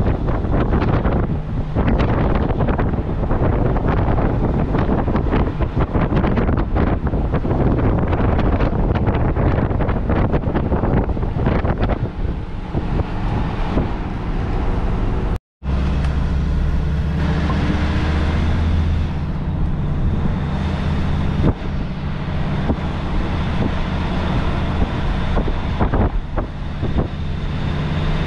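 Wind buffeting the microphone over vehicle road noise. After a brief cut about halfway through, a motorhome's engine drones steadily with road noise.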